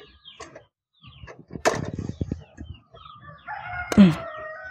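Steel perforated ladle clattering against a steel plate and steamer pot as the steamed dumplings are moved across, with the loudest sharp clank about four seconds in. A rooster crows in the background near the end, one long held call.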